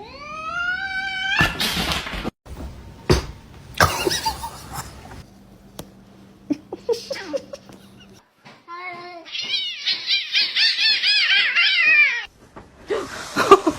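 Cats meowing and yowling: one long rising meow at the start, then a wavering, high-pitched yowl of about three seconds later on. A few sharp knocks and thumps come between the calls.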